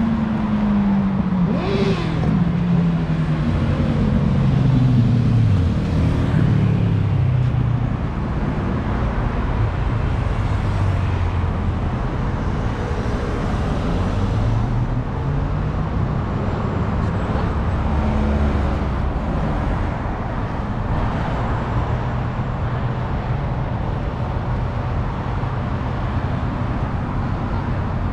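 City road traffic: motor vehicles going by, with one engine dropping in pitch as it passes in the first few seconds, then a steady traffic rumble.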